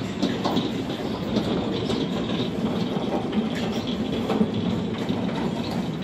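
Sawmill log carriage rolling along its rails under a heavy log, a steady rumble with scattered small clatters.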